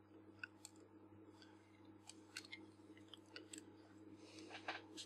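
Faint scattered clicks and rubbing of fingers gripping and turning the metal barrel of a Nikkor 105 f/2.5 lens, a little busier near the end, over a low steady hum.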